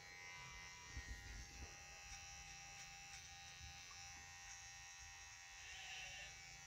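Electric hair clippers buzzing faintly and steadily as they cut hair.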